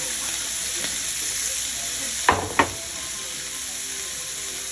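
Sliced turkey sausage sizzling steadily in a hot stainless steel frying pan. About two seconds in come two sharp knocks, a third of a second apart.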